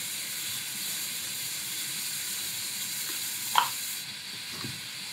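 TIG welding arc on thin chrome-nickel stainless steel, a butt joint fused without filler rod at very low current: a steady, high sizzling hiss. The hiss drops away about four seconds in.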